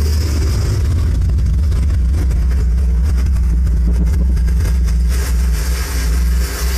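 Deep, steady bass rumble from a JBL subwoofer driven by a home-made amplifier, playing a subwoofer test clip. The level dips near the end.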